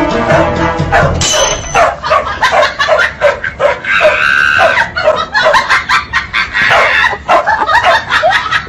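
Dogs barking in quick, repeated barks, about two to three a second, with a held higher note about four seconds in.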